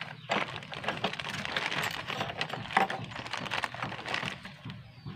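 Clear plastic bag crinkling and rustling as it is handled, a dense run of crackles that dies away near the end.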